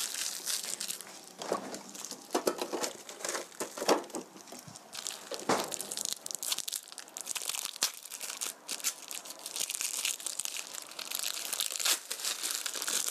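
Plastic film of individually wrapped processed cheese slices crinkling and rustling as it is handled and peeled off, with many sharp crackles.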